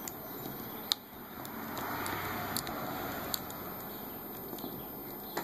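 Lock pick and tension wrench working inside the cylinder of a Kryptonite bike lock: scattered small clicks, the sharpest about a second in, over a soft scraping rustle.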